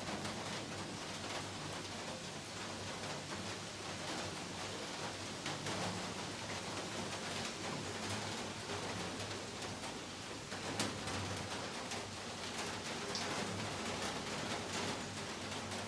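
Heavy rain falling steadily, a dense, even hiss of drops, with one sharper, louder tap about eleven seconds in.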